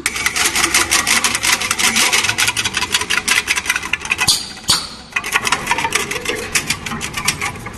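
CNC channel letter bending machine running, with a fast, even rasping clatter of clicks, roughly ten a second, as it works the metal strip; it eases off somewhat near the end.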